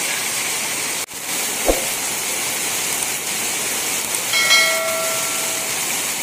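Heavy rain pouring, a steady hiss. A short thump comes about a second and a half in, and a bright bell-like notification chime rings for about a second past the middle.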